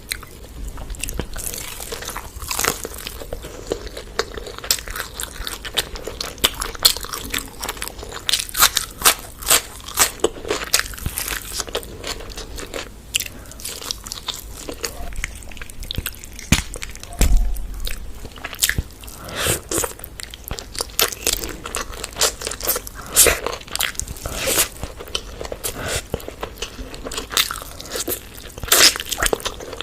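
Close-miked eating of chicken curry, biryani and onion: irregular bites, crunches and chewing, with one heavier thump about halfway through.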